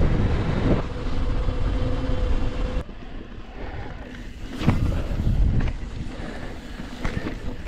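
Wind buffeting the camera microphone and tyre rumble from a YT Decoy electric mountain bike being ridden fast. At first there is a steady hum under it. About three seconds in the sound changes abruptly, and after that come occasional sharp knocks and rattles.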